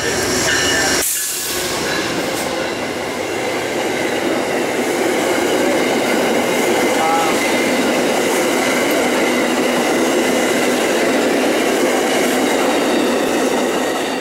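Amtrak passenger train led by a GE P40DC diesel locomotive passing close by. The locomotive goes by about a second in, then the steady rush of steel wheels on the rails as the stainless-steel passenger cars roll past. It tails off at the very end as the train clears.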